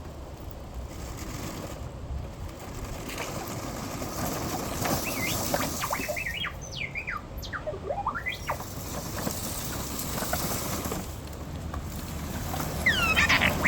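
R2-D2 replica's electronic beeps and warbling whistles from its sound system: a quick run of chirps sweeping up and down in pitch in the middle, and a burst of sweeping whistles near the end, over a steady background noise.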